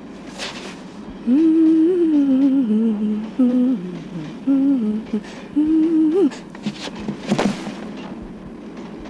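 A woman humming a slow, wordless tune in four short phrases over a steady background noise.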